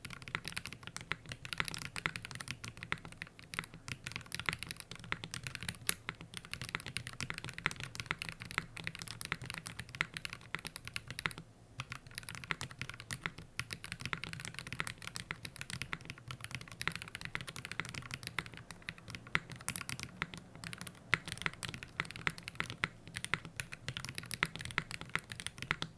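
Typing on a QK60 mechanical keyboard fitted with stock Gateron Cream Soda linear switches, an aluminium plate, GMK keycaps and no foam inside: a fast, uneven stream of keystrokes, with a brief pause about eleven and a half seconds in.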